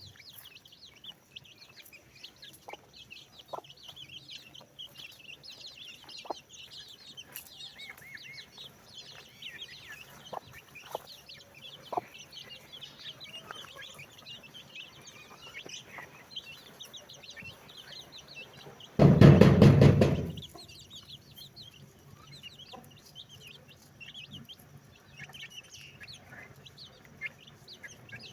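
Baby chicks peeping continuously: many rapid, short, high-pitched peeps overlapping, with a few lower single calls. About two-thirds of the way through, a loud burst of low noise lasts about a second and a half.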